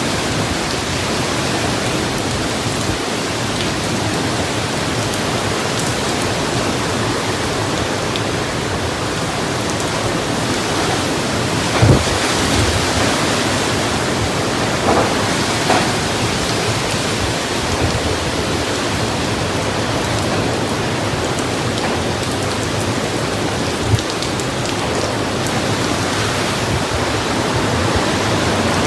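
Heavy hurricane rain, a loud steady rush, with a few short sharp knocks: one about twelve seconds in, a couple around fifteen to sixteen seconds, and one near twenty-four seconds.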